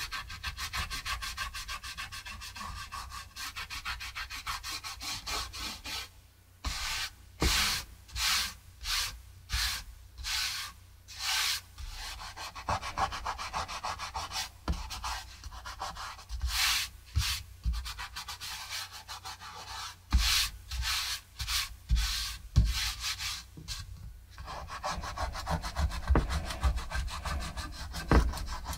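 Fingertips rubbing dried masking fluid off Arches cold-pressed watercolour paper. A steady scuffing turns into quick back-and-forth strokes, about two a second, through the middle stretch, then settles back into continuous rubbing near the end.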